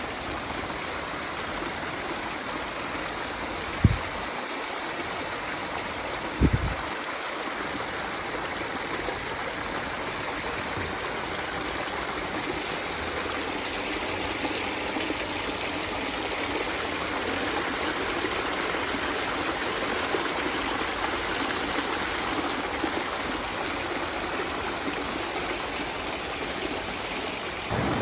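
Mountain creek rushing over mossy rocks and small cascades: a steady, even rush of water. Two brief low thumps come about four and six and a half seconds in.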